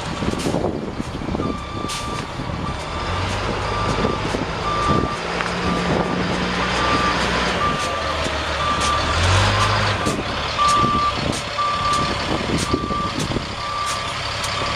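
A dump truck's backup alarm beeps at a steady pace, about three beeps every two seconds, starting about a second and a half in. Under it, the truck's Caterpillar 3126 inline-six turbo diesel runs as the truck reverses.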